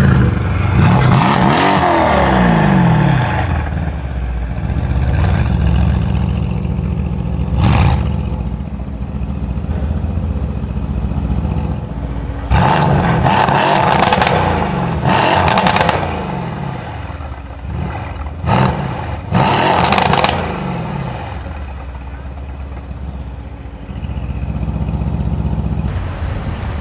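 Mercedes-AMG C63 S coupe's twin-turbo V8 exhaust, first pulling away under acceleration with a rising engine note. After a steadier stretch, it is revved in several short, loud bursts with crackles about halfway through. Another car's engine runs steadily near the end.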